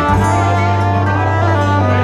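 Live country trio playing the instrumental close of a song: fiddle bowing sustained notes over acoustic and electric guitars, with a long low note held underneath.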